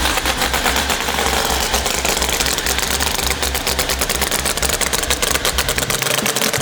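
Pro Mod drag car's V8 engine idling loud and choppy, a rapid uneven clatter over a pulsing low rumble.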